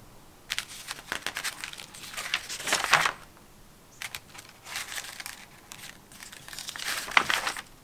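Paper instruction sheets being unfolded and handled, crinkling in two spells: one from about half a second to three seconds in, the other from about four seconds in until near the end.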